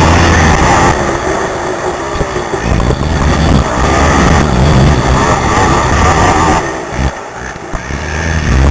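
A racing ATV's engine through a helmet camera's microphone, at full throttle, easing off about a second in, shifting up and down in revs, then backing off around seven seconds in before opening up again near the end.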